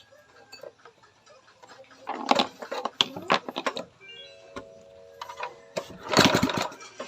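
A small engine being cranked in two short, noisy bursts of rapid strokes, the second about four seconds after the first, without running on after either.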